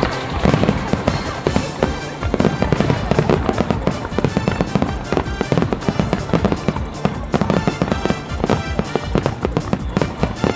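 Aerial fireworks in a rapid barrage, shells bursting in a dense, unbroken string of bangs and crackles several times a second.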